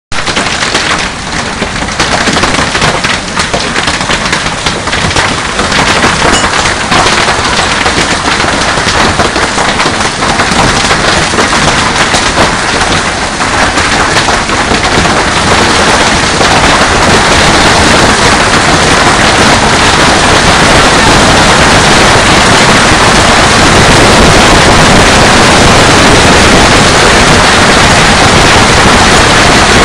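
Heavy hail pelting the pool, patio and yard: a dense clatter of countless stone impacts that grows heavier and louder, merging into a steady hiss from about halfway through.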